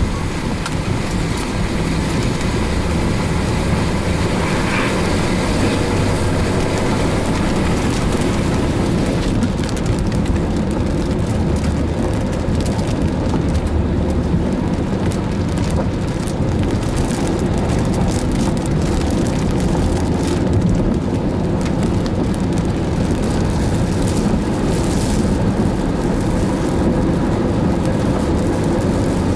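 Steady rumble of a car driving in rain, with road and wind noise and rain on the vehicle.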